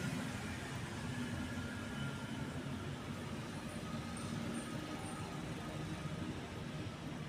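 Steady low background rumble, with a few faint, short high peeps about four to five seconds in.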